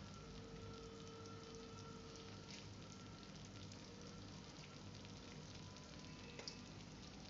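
Faint, steady sizzling of a condensed-milk and peanut-butter mixture cooking in a frying pan, with a spatula stirring it and scraping the pan in the second half.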